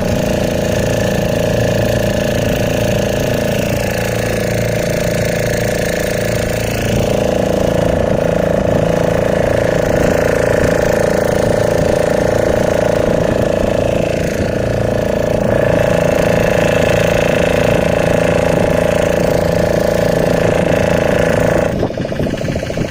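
Fishing boat's engine running loud and steady, with a strong droning hum; it swells slightly about seven seconds in, then drops to a quieter, lower run near the end.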